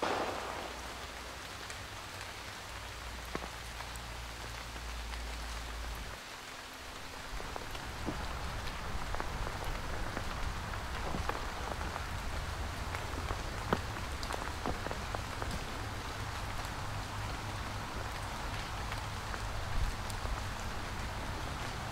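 Rain pattering steadily, with scattered sharper drops standing out, over a low rumble.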